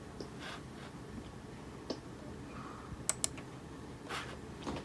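Two quick, sharp clicks about three seconds in, from clicking a choice on a laptop, over a faint steady room hum, with a few softer taps and rustles around them.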